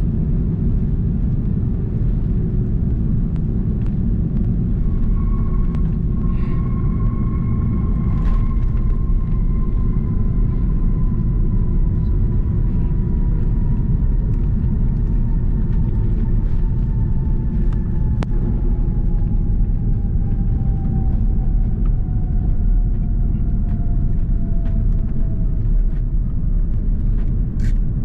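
Airbus A330-300 cabin on its landing rollout: a steady, loud low rumble of the wheels and airframe on the runway. From about five seconds in, an engine whine slowly falls in pitch as the engines spool down, with a few faint clicks from the cabin.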